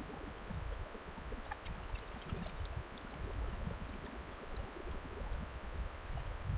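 Shallow river running over a stony bed: a steady rush and gurgle of flowing water, with a low, uneven rumble of wind on the microphone.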